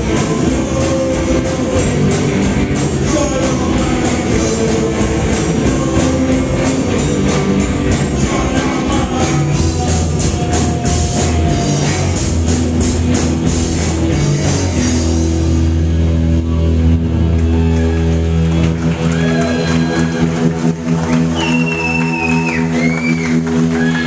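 Live amplified rock band playing loud: distorted electric guitars, bass, drum kit and a singer. About fifteen seconds in the drums and cymbals stop and the band holds a ringing low chord, with sliding high guitar notes over it, as the song winds down.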